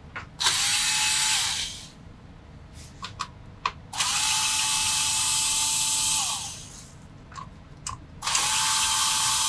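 Cordless electric screwdriver backing out the screws of a PC's stock CPU cooler. It gives three short runs of a steady, even-pitched whir, with small clicks and taps between the runs. The last run starts a little after eight seconds.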